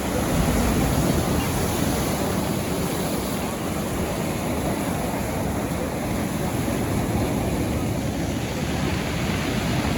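Surf washing into a cove near high tide, a steady rush of waves, with some wind on the microphone.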